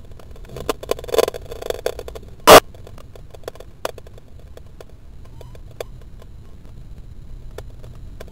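Landed water rocket lying in grass, heard through its onboard camera's microphone: faint scattered clicks and crackles, with one loud, sharp click about two and a half seconds in and a few smaller ones after it.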